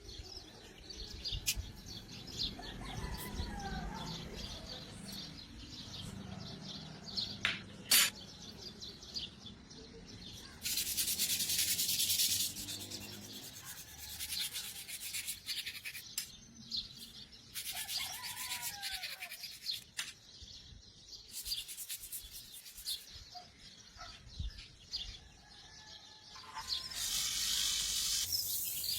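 Abrasive rubbing on the metal body of a diecast model car, in several separate strokes of a second or two each. There is a single sharp click partway through, and birds chirp in the background.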